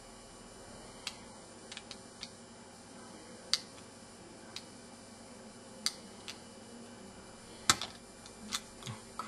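About a dozen sharp, scattered clicks as a small flat metal blade pries and levers at the plastic frame and circuit-board edge of an Alcatel One Touch 918D mobile phone. The loudest click comes near the end.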